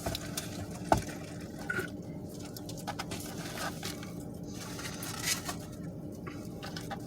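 Wet, squishy mouth noises from eating fried chicken and sides, with scattered small clicks and scrapes, one sharper click about a second in.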